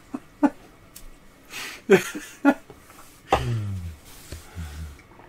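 Men stifling laughter: short snorts, a breathy exhale and low suppressed chuckles in brief bursts.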